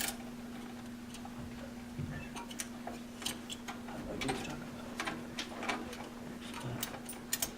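Scattered light clicks and taps of hands working a CPU heatsink loose inside a computer, irregular and a few a second at most, over a steady low hum.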